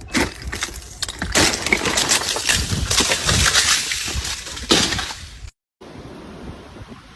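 Dense crackling and clattering of breaking ice, with several louder cracks; it cuts off suddenly about five and a half seconds in, and steady wind noise follows.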